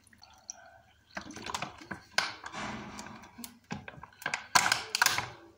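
A plastic bottle crackling and soil crunching as the bottle is pushed upside-down into a plant pot: irregular clicks and crinkles, loudest in a burst near the end.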